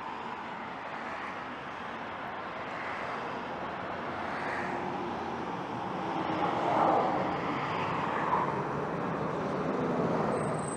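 Road traffic noise from a highway, a steady rush of tyres and engines, swelling louder for a couple of seconds in the middle as a vehicle passes.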